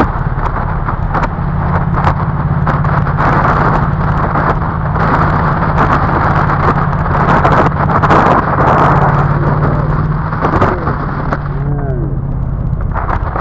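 Ducati Monster motorcycle's V-twin engine running at cruise, under heavy wind rush on the helmet-camera microphone. The engine note drops away near the end.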